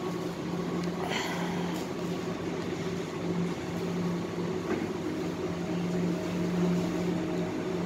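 Steady mechanical hum of supermarket refrigerated display cases and ventilation, with a low held tone that swells and fades a little.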